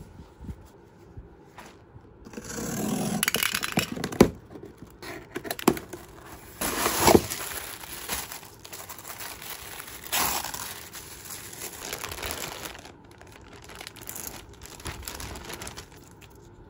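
Plastic packaging crinkling and rustling as clothes are pulled out of a mailer bag and a clear plastic garment bag, with louder spells of crinkling a few seconds in, about halfway, and again a few seconds later.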